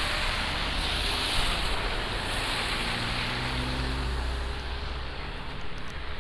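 Steady rushing wind noise over the low rumble of a vehicle engine, with faint engine tones that rise slightly in the middle and fade toward the end.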